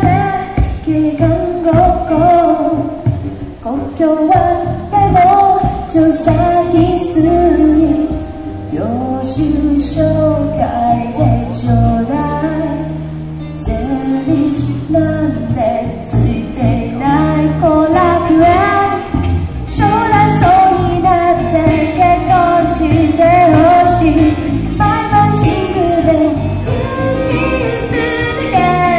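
A female vocalist singing a pop song live, with instrumental backing that includes guitar.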